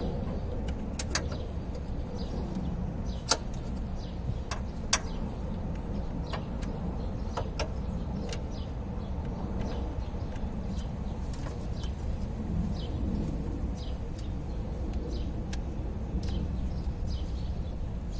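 Irregular sharp clicks and light taps of hand tools and an ignition-coil connector and bolt being handled and fitted in the engine bay, over a steady low background rumble. The two loudest clicks come about three and five seconds in.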